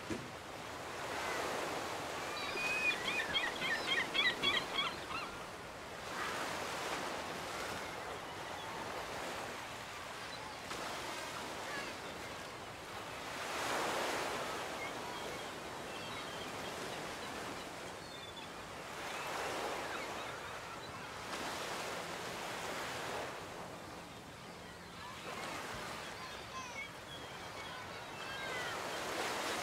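Ocean surf washing onto a beach, swelling and fading every several seconds. A short run of high, rapid chirps comes a few seconds in.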